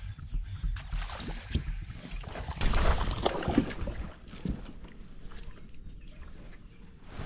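Water splashing and sloshing around a fishing kayak, with wind on the microphone and small knocks from the hull and gear. It swells loudest for about a second and a half, a little under three seconds in.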